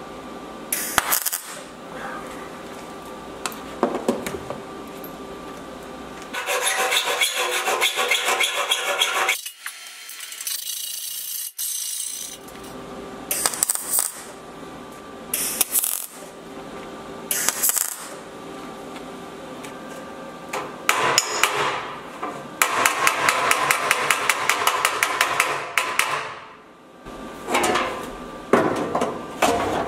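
MIG welder stitch-welding a sheet-steel outer sill panel: a series of short welds of about half a second each, with two longer runs of about three seconds.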